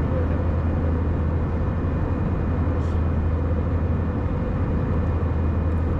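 Steady cabin noise inside an Airbus A319 airliner: an even engine and airflow drone with a strong low hum.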